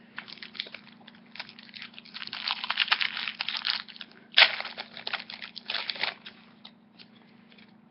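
Foil booster-pack wrapper crinkling and being torn open by hand in dense crackly clusters, with a sharp loud tear about halfway through.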